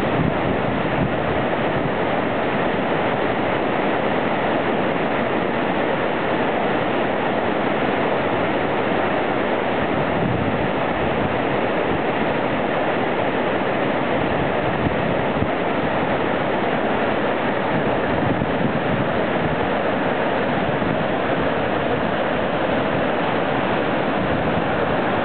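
Alpine waterfall pouring into a rock pool and churning white water below it: a steady, unbroken rush of falling water.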